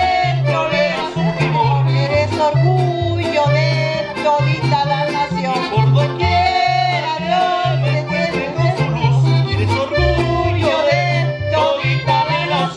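Live mariachi music: a guitarrón plucks a steady bass line under strummed guitars, with a melody with vibrato on top.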